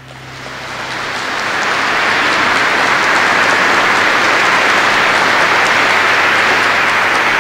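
Audience applauding in a large church. The applause swells over the first couple of seconds after the music ends, then holds steady.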